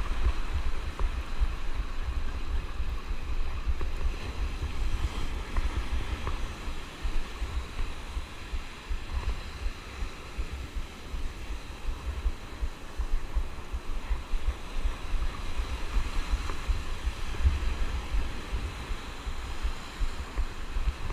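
Wind buffeting the microphone in uneven gusts over the steady wash of surf breaking on the beach.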